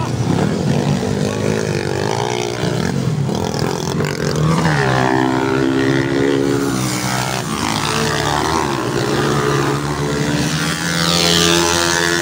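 Motocross dirt bike engines revving hard as the bikes race past. The engine note rises and falls as riders accelerate and shift gears.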